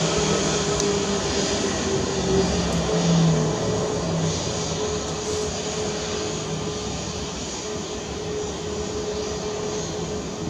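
Airbus A320neo's CFM LEAP-1A turbofans on the landing rollout: a steady jet roar with a held whine, slowly fading as the aircraft rolls away down the runway.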